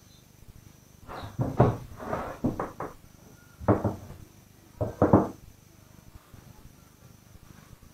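Black vinyl motorcycle seat cover being pulled and stretched over the seat, rubbing and squeaking against the foam and its plastic wrapping in four short bursts.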